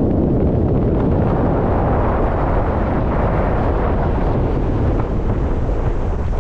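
Wind buffeting the camera's microphone: a loud, steady rumble.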